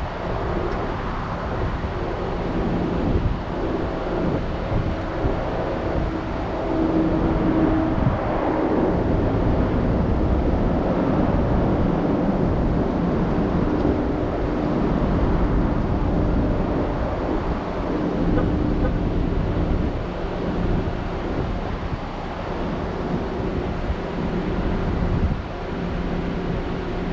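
Car on the move: steady engine and road noise, with faint engine tones that rise and fall a little.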